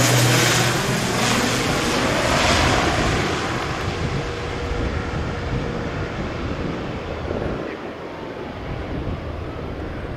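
CASA 212 twin-turboprop's engines and propellers passing low overhead on approach to land, the propeller tone dropping in pitch at the start and the sound then fading steadily as the aircraft flies away.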